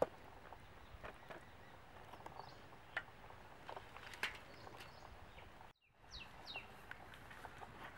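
Faint outdoor ambience with scattered small clicks and taps, the sharpest right at the start. The sound drops out briefly just before six seconds in, then a few short falling bird chirps follow.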